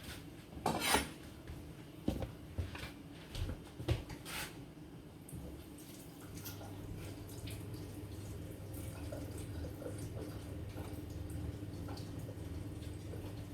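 Kitchen handling while washing vegetables: water dripping, with scattered clinks and knocks of a bowl and vegetables during the first few seconds. After that a steady low hum sets in, with small clicks over it.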